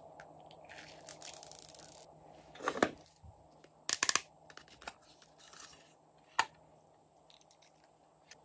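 Small plastic beads sprinkled from a hand onto slime, a quick patter of tiny ticks. Then a hinged plastic case clicks open with a cluster of sharp snaps, followed by a few scattered taps and clicks.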